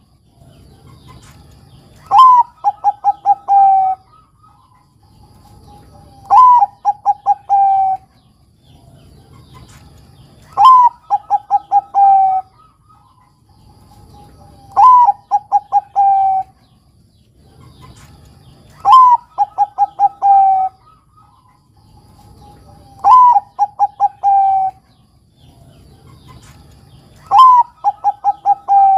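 Zebra dove (a Bangkok-type perkutut) singing its cooing song seven times, about every four seconds. Each phrase is a rising opening coo, then a quick run of short staccato coos, and ends in a longer held coo.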